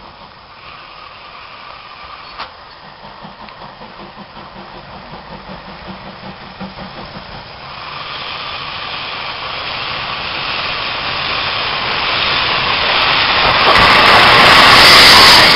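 Steam locomotive approaching and passing close: a regular beat in the first half gives way to a hiss of steam and running noise that grows steadily louder, loudest as the engine draws level near the end.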